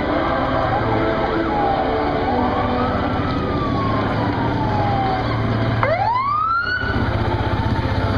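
Emergency vehicle siren wailing, slowly rising and falling over a low engine rumble. About six seconds in it sweeps up quickly once and cuts off, and a small utility vehicle's engine is then heard running close by.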